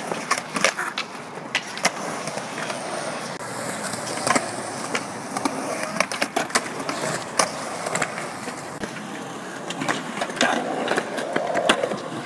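Skateboards rolling on concrete, with frequent sharp clacks of boards and wheels striking the ground.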